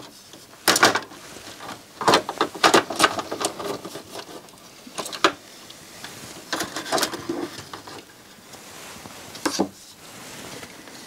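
Irregular clicks and knocks from hands working on a CD player's drive mechanism and chassis.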